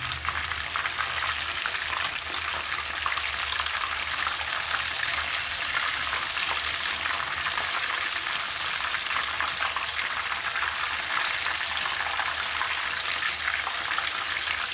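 Marinated chicken pieces frying in hot oil in a frying pan: a steady, dense crackling sizzle as the pieces are turned over with tongs.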